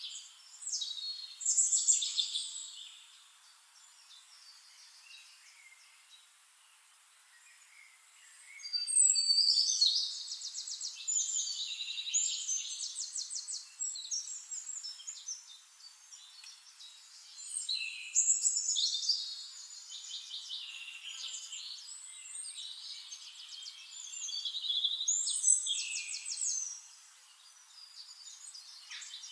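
Songbirds singing: phrases of fast trills and whistles, several seconds long, coming in turn, with a quieter gap of a few seconds near the start.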